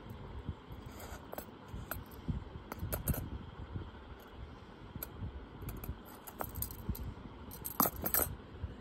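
Silver bangles clinking against each other as they are handled and set into a jewellery box: scattered light metallic clicks, with a louder cluster of clinks near the end.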